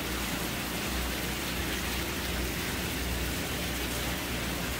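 Steady splashing and bubbling of water in aerated live-fish holding tanks, fed by inflow pipes.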